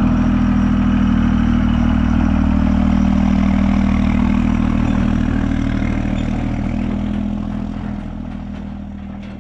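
Cummins diesel pickup engine running steadily at an even pitch, loud, then fading gradually over the last few seconds.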